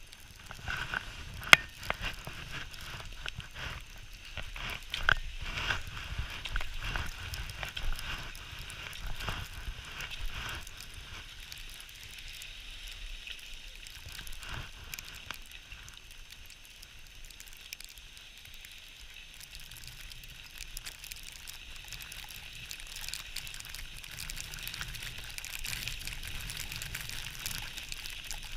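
Skis scraping and hissing over snow, with sharp clicks and knocks of poles and skis in the first few seconds, the loudest about a second and a half in. A steady sliding hiss follows as the skier glides downhill.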